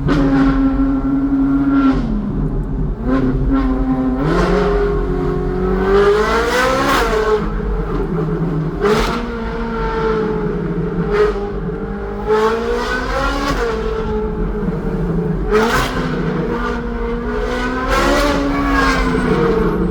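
Ferrari 458's flat-plane V8 breathing through a loud aftermarket Secret Weapon exhaust, revving up hard several times and dropping back as it shifts, with a few sharp cracks.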